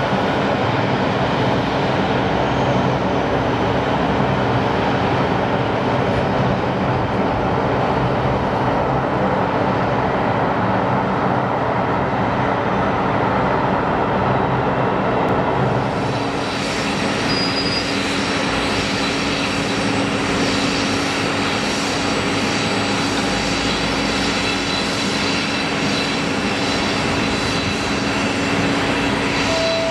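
Jet engines of a Kawasaki C-1 transport, its twin Pratt & Whitney JT8D turbofans, running at low power on the ground: a steady loud drone with a low hum. About sixteen seconds in a brighter, hissier jet sound joins it.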